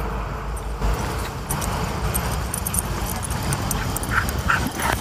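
Dogs barking and yipping, with a few short yips close together near the end, over steady background noise.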